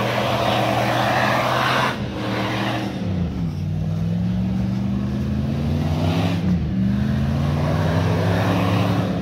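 Jeep Grand Cherokee ZJ's 5.2-litre V8 held at revs while stuck in deep snow, its wheels spinning and throwing snow in two hissing spells, near the start and about six seconds in. The engine note drops briefly about three seconds in, then picks up again.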